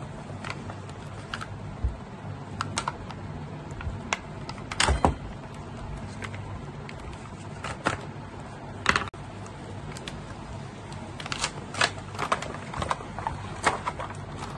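Handling of a belt-type oil filter wrench in its plastic packet: scattered crinkles, taps and clicks, irregular and short, over a steady low hum.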